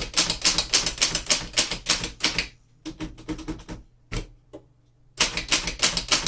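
1908 Remington Standard manual typewriter being typed on: quick runs of sharp key strikes, about five a second. A few sparser strikes and a short pause come in the middle, then fast typing resumes about five seconds in.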